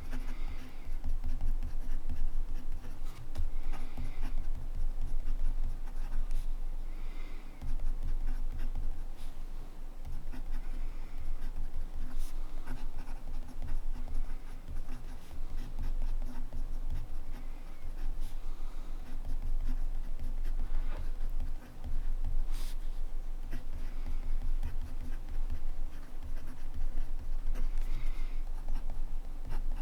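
Montblanc Meisterstück 144 fountain pen nib scratching across paper in continuous handwriting, the strokes irregular with brief pauses between words, over a low steady hum.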